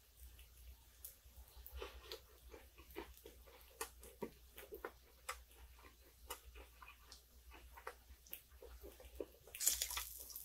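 Close-up eating sounds: chewing a lettuce wrap of thin-sliced pork belly, with many small wet mouth clicks and crunches. Near the end comes a short, louder hiss as chopsticks work the meat in the cast iron pan.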